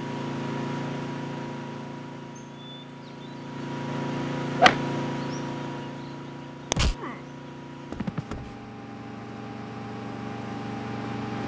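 Riding lawn mower engine running steadily, growing louder as the mower passes by about half a second in and again around four and a half seconds. A sharp crack comes just after the second pass, then a heavy thump about two seconds later and a few light knocks, after which the engine note sits a little lower.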